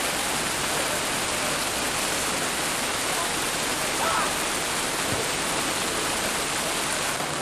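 Heavy rain falling in a steady hiss, with a short faint call about four seconds in.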